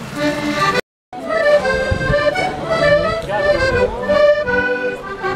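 Several accordions playing together in a walking procession. The sound cuts out briefly just under a second in, then accordion music resumes with crowd voices mixed in.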